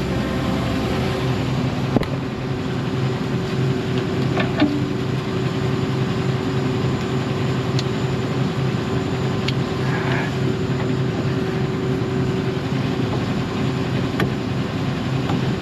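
A vehicle engine running steadily with an even, unchanging hum, with a few light clicks.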